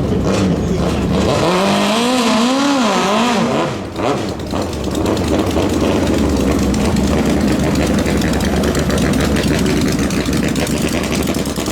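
Engine running loud, revved up and down in quick swings for a couple of seconds, then held in a steady hard-running drone.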